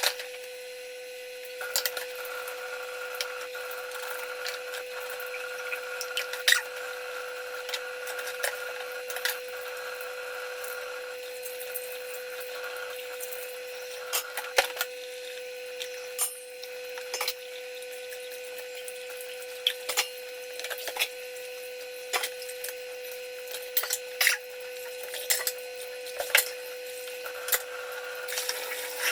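Dishes being washed by hand at a kitchen sink: irregular clinks and knocks of plates and utensils over running water, with a steady hum underneath.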